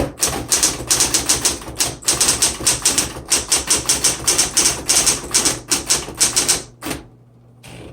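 Smith Corona Electra 120 electric typewriter typing a line: a fast, continuous run of keystrokes that stops about seven seconds in, followed by two single strikes.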